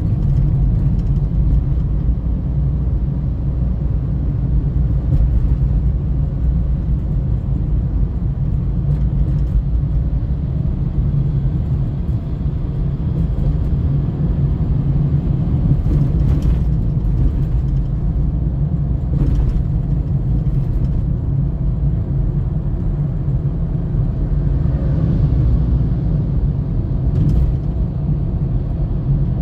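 Steady low rumble of a car driving, heard from inside the cabin: engine and tyre noise, with a few faint ticks partway through.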